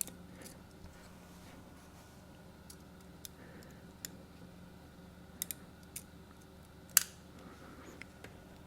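Scattered small clicks and ticks of plastic and aluminium parts of a thermal label printer's printhead assembly being worked together by hand, the loudest about seven seconds in, over a faint steady low hum.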